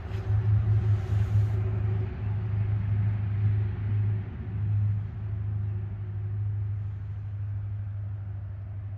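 Steady low rumble of a running engine, stronger through the first five seconds and then easing slightly.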